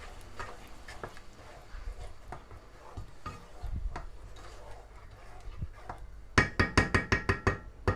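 Faint knocks of a utensil working sauce in a cooking pot, then near the end a quick series of about eight sharp metallic taps with a ringing tone, a utensil tapped against the pot.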